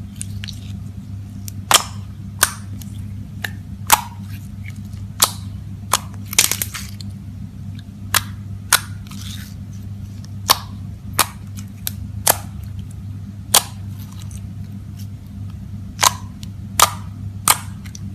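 Gold foil slime being mixed and squeezed by hand, trapped air popping with sharp, irregular clicks about once or twice a second over a steady low hum.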